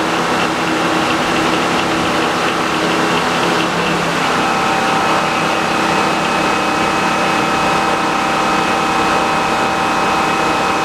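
Frick circular sawmill running with its blade spinning free, not cutting: a steady mechanical drone with several steady tones. About four seconds in the sound shifts, a lower hum dropping away as a higher whine comes in and holds.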